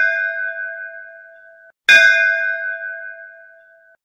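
A bell-like chime struck and ringing with several clear tones as it fades, struck again about two seconds in; each ring is cut off short rather than dying away.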